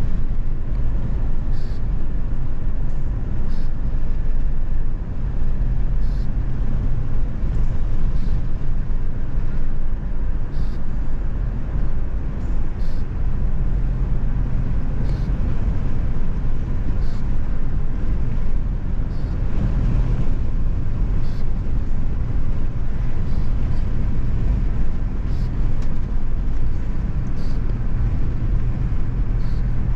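A car driving steadily, giving a continuous low rumble of engine, road and wind noise.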